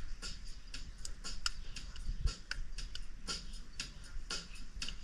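A series of light, irregular clicks and ticks, a few a second.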